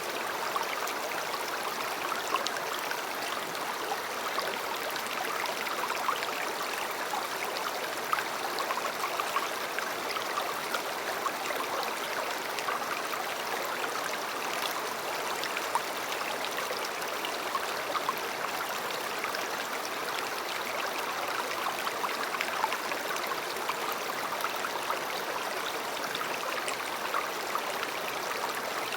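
River water flowing: a steady rush with small splashes and trickles scattered through it.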